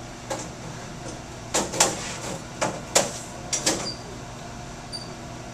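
An X-ray film cassette being slid and fitted into the holder of an upright chest stand: a run of sharp knocks and clacks, the loudest about three seconds in.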